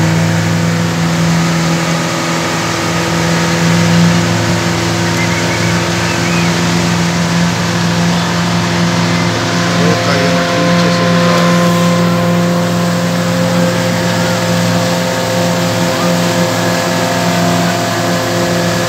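Boat motor running steadily at cruising speed: an even engine drone that holds one pitch throughout, over a continuous hiss.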